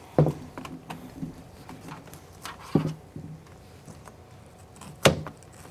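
Bowls of frosting set down and knocked on a countertop: three sharp knocks, about two and a half seconds apart, each with a short hollow ring.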